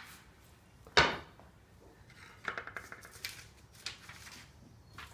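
A sledgehammer strikes a paddle punch on a concrete floor once, sharply, about a second in, followed by lighter clinks and taps as the punch is handled.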